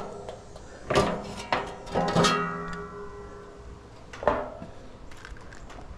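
Metal knocks and clanks from the wire fan guard of a Bosch heat pump condenser as it is lifted off with its fan. A few knocks about a second in, two more about two seconds in that ring on for about a second, and another knock about four seconds in.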